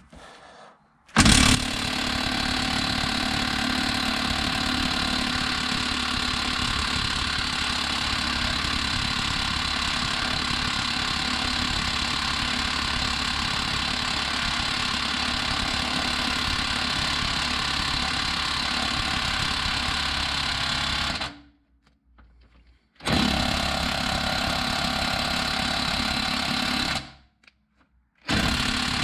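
Bosch cordless half-inch impact wrench hammering on a seized suspension-arm bush nut, whose sleeve the owner reckons is corroded into the bush. It runs in a long burst of about twenty seconds, then a burst of about four seconds, and starts again just before the end.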